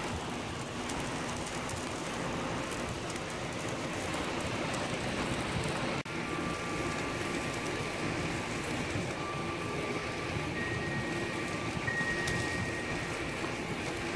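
Steak sizzling on the grate of a charcoal kettle grill: a steady, even hiss that cuts out for an instant about six seconds in.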